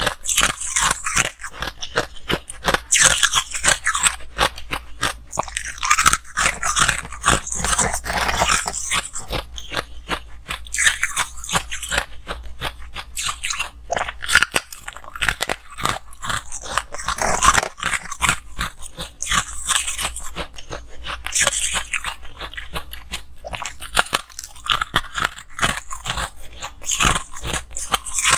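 Biting and chewing chunks of freezer frost: crisp, crackly crunches in a dense run, with louder clusters of crunching every few seconds as each new bite is taken.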